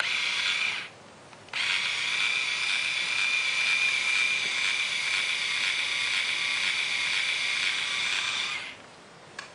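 InStyler rotating hair iron's electric motor spinning its heated barrel with a steady high whine. It runs for under a second, stops briefly, then runs again for about seven seconds before cutting off.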